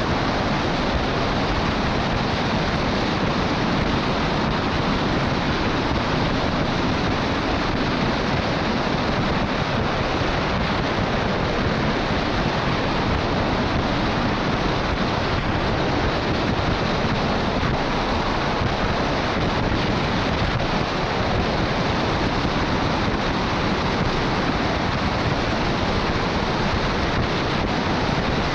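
Steady rushing wind noise over a roof-mounted camera on a MAN LE280B 4x4 truck travelling at highway speed, mixed with tyre hiss on the wet road.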